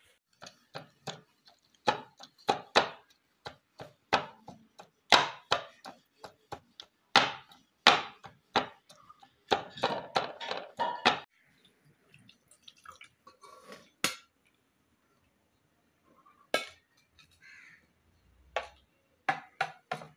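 A pestle pounding boiled chicken meat in a ceramic plate: repeated knocks on the plate, close together for the first ten seconds or so, then a few scattered strikes.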